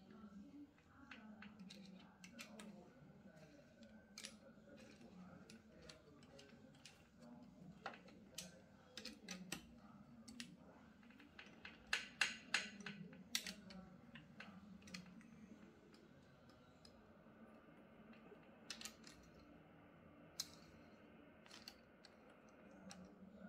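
Faint, scattered metallic clicks and clinks of hand tools and engine parts being handled during connecting-rod and piston installation, with a short run of sharper clinks about halfway through.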